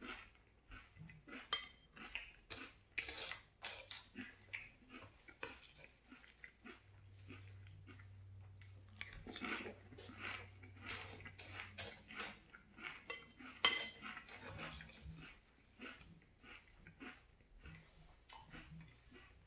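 Close-up chewing and crunching of maple cinnamon Frosted Flakes in milk, with a metal spoon clinking and scraping against a ceramic bowl; one sharp clink just after the middle is the loudest sound.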